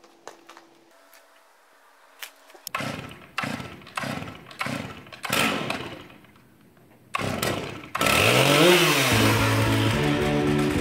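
Stihl chainsaw being pull-started: a run of quick cord pulls, each with a short burst from the engine, until it catches about seven seconds in and then runs loudly with one rev up and back down. Background music comes in over it in the last few seconds.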